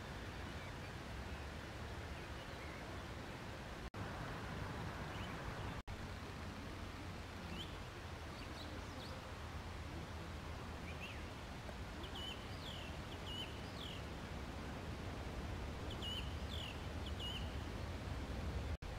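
Steady outdoor background noise with a low rumble, and small birds chirping in short bursts of quick, high calls from about a third of the way in, clustered in two groups in the second half.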